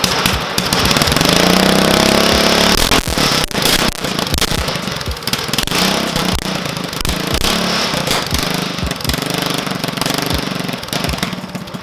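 Small single-cylinder go-kart engine, freshly rebuilt with its governor removed, running on a workbench and being revved: the pitch climbs over the first few seconds, then rises and falls in repeated blips.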